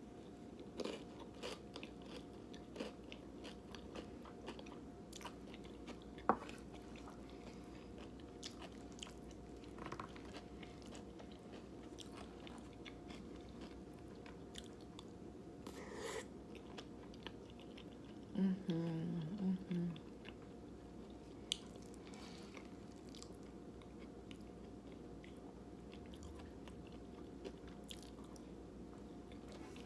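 Close-up chewing and biting of a mouthful of chili and rice, with scattered small clicks and crunches. About two-thirds of the way through comes a short, low voiced sound from the eater.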